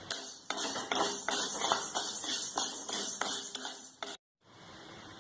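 A spatula stirring and scraping urad dal and toor dal being roasted in a pan, in a run of irregular scrapes and clatters. About four seconds in the sound cuts out for a moment, then a faint steady hiss remains.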